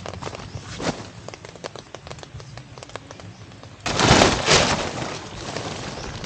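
Nylon tent fabric rustling and crinkling as it is pulled out and unfolded, with a loud burst of rustling about four seconds in. Scattered raindrops tap on the tarp shelter overhead.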